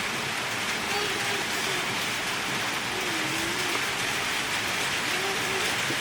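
Steady rain falling, an even hiss of drops on a surface.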